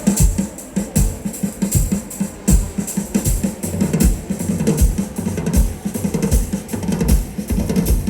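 Music with a drum kit keeping a steady beat: deep bass-drum thumps under snare hits and bright cymbal ticks.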